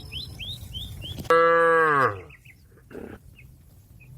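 A cow moos once, a short loud call a little over a second in that falls in pitch as it ends.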